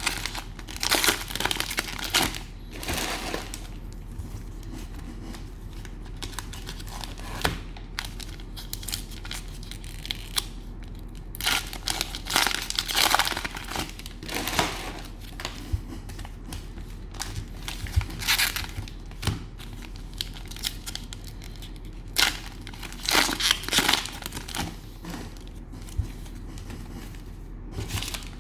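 Cellophane wrappers of trading-card cello packs crinkling and tearing as the packs are opened, in repeated bursts with short pauses between.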